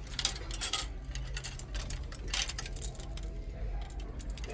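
Scattered light clicks and clinks of badminton rackets knocking against one another and the wire display rack as they are handled, over a low steady hum.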